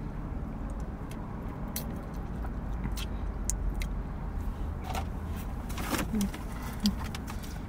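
Steady low rumble of a car cabin, with scattered light clicks and taps from eating and handling food.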